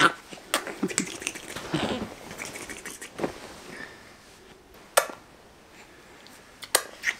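Kisses on a baby: a few sharp lip smacks spaced out, two of them close together near the end, with soft rustling of bedding in between.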